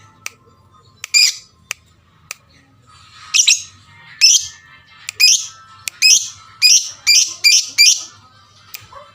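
Lovebird calling: a few sharp ticks, then from about three seconds in a quick run of about eight loud, shrill, harsh chirps. This is a lovebird lure song, the kind played to set other lovebirds calling.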